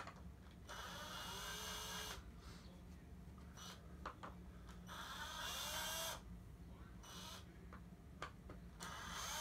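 Power drill backing flathead screws out of a belt's side plates, run in short bursts of a second or so. The motor whine rises in pitch as it spins up. It runs twice, about a second in and about five seconds in, and starts again at the very end.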